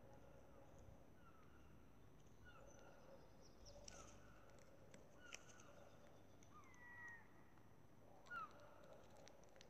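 Faint common grackle calls: scattered short chirps and squeaky notes, with a longer squeak about seven seconds in and a sharper, louder rising squeak about eight and a half seconds in.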